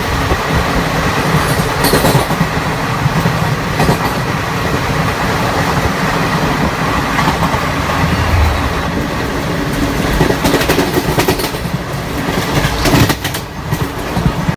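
Steady rumble of an Indian express train running at speed, heard from aboard. Its wheels clatter over rail joints in clusters of clicks, while the coaches of a slower express on the next track rush past close alongside. The noise dips briefly near the end as the last coach of the overtaken train clears.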